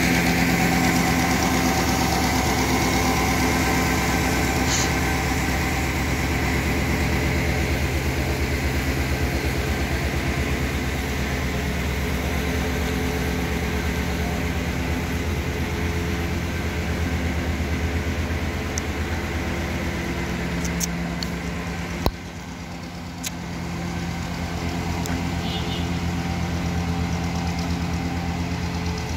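Engine of a road-construction machine running steadily at a constant speed. About 22 seconds in there is a sharp click, the sound dips briefly, and then the same steady running resumes.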